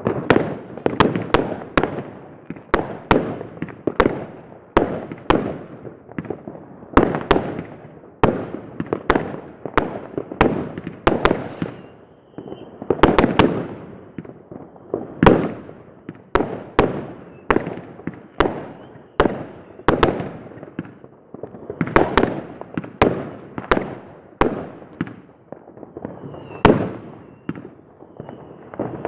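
New Year's Eve fireworks going off in a steady barrage, about one or two sharp bangs a second, each trailing off in an echo. A faint high whistle comes through a few times.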